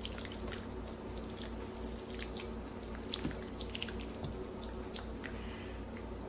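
Faint wet squishing with scattered light clicks of a spoon working a thick, cheesy baked-pasta mixture of pasta, meat sauce and ricotta-mozzarella filling, over a steady low hum.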